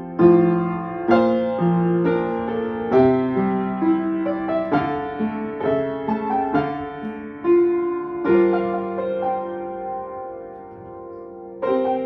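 Upright piano played solo: a melody over chords, with struck notes coming every half second or so. About nine seconds in it eases into a held chord that dies away, and a new chord is struck near the end.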